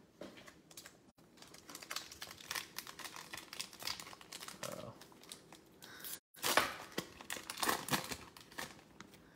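Football trading cards handled and flipped through by hand: quiet crinkling, ticking and sliding of card stock, with a louder flurry of rustling about two-thirds of the way in.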